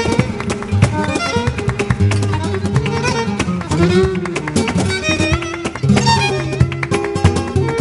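Flamenco music: acoustic guitar playing quick plucked notes and strums, with a bowed violin line over it.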